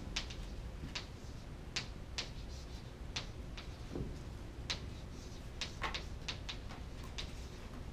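Chalk writing on a chalkboard: irregular sharp taps and short scratches, about two a second, over a low steady room hum.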